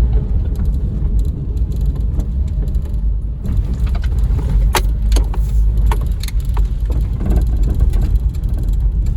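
Inside the cabin of a Honda Vamos Hobio Turbo kei van: a steady low engine and road rumble, with a few sharp clicks and knocks about halfway through.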